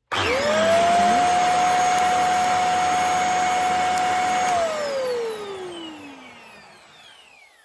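500-watt bed and mattress vacuum cleaner switched on: its motor spins up within half a second to a loud, steady whine over rushing air. It is switched off after about four and a half seconds and winds down in a long falling whine.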